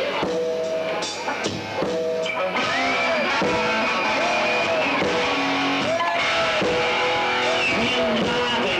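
Rock music played by a band: guitar with bending, sliding notes over drums, including a long held high note in the middle.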